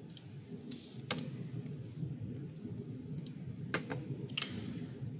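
Computer keyboard keys clicking in a few scattered, unhurried keystrokes over steady low background noise.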